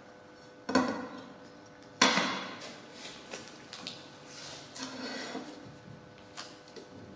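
Glass strips being handled and set down on a hard workbench: two sharp knocks about a second apart, the second louder with a brief ringing tail, followed by softer taps and the rustle of masking tape being pressed onto the glass.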